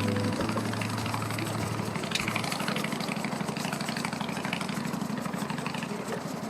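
An engine idling, a low, rapid, even pulsing that runs steady.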